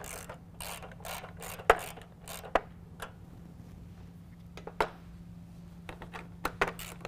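Hand ratchet with a 3/8-inch socket tightening nuts onto studs, making irregular runs of short clicks with a few louder sharp knocks among them.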